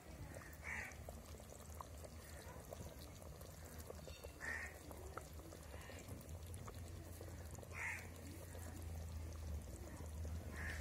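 Chicken curry boiling in a large aluminium pot, with faint bubbling and gurgling.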